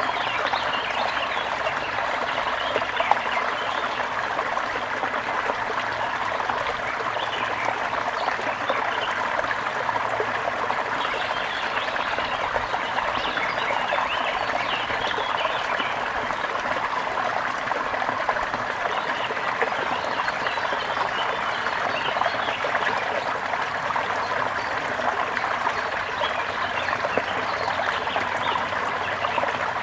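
Small brook babbling and trickling steadily over stones.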